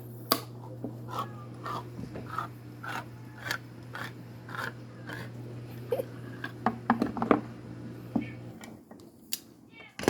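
A can of tuna being opened with a can opener: a run of evenly spaced clicks and squeaks, about two a second, over a steady hum, then a quick flurry of sharper clicks. The hum stops near the end.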